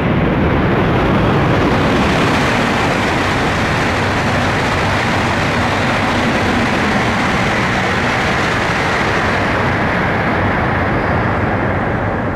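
E5-series Shinkansen coupled to an E6-series train passing at high speed: a loud, steady rush of wheel and air noise that holds for about twelve seconds and begins to fade near the end.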